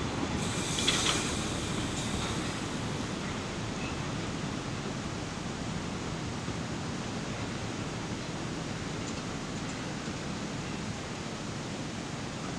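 Narrow-gauge train rolling away, its rumble fading into a steady low noise, with a brief clatter about a second in.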